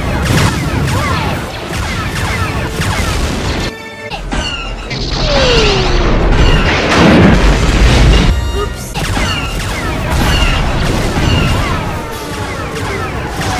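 Sci-fi space-battle sound effects over orchestral music: repeated falling blaster zaps and explosions, with the biggest blast swelling about five to eight seconds in.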